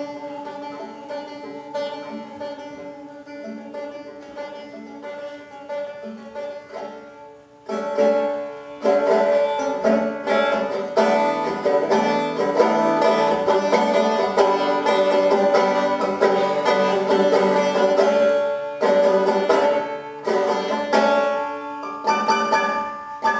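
Banjo played solo with no singing: a quiet, sparse picked passage, then after a brief dip about eight seconds in, louder and fuller picking that carries on.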